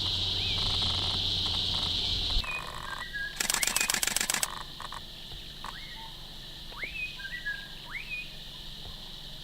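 Outdoor bush ambience: a steady high-pitched drone with a low rumble, which changes abruptly to a brief rapid rattle of clicks, then a bird calling with short whistles that sweep sharply upward, repeated about once a second.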